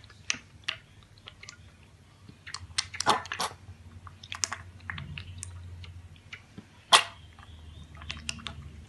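Piglet slurping milk from a stainless steel bowl: irregular wet smacks and clicks, with a louder one about seven seconds in.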